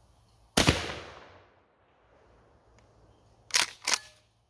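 A single shot from a Rock Island Armory AG12 12-gauge pump shotgun firing a birdshot load, ringing out and fading over about a second. Near the end comes the pump action being cycled, two quick clacks a third of a second apart.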